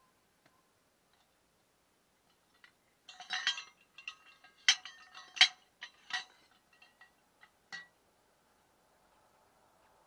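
A homemade sliding hammer striking a steel pepper-support pipe to drive it into the ground: a series of sharp metallic clanks with a ringing tone, a quick cluster then three strong strikes about three-quarters of a second apart and a last lighter one near the end.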